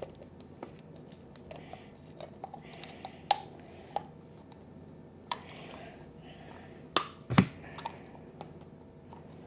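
Scattered clicks and taps of small objects being handled and set down on a table, with a heavier knock about seven seconds in.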